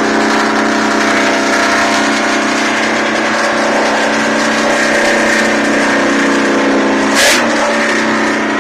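Ford WT9000 cabover's 318 Detroit two-stroke diesel running steadily as the truck drives, with one brief sharp knock about seven seconds in.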